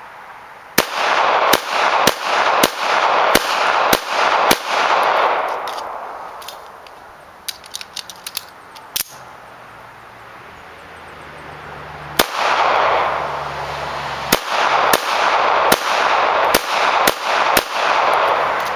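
Two strings of .380 ACP pistol fire from a Colt Government .380 shooting Tula steel-case ammunition. Seven quick shots about two-thirds of a second apart, a pause with a few small metallic clicks, then seven more shots. Every round fires and cycles without a stoppage.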